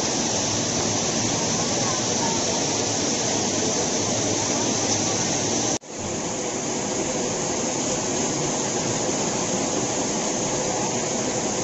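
Steady rush of flowing water, even and unbroken except for a sudden brief cut about six seconds in.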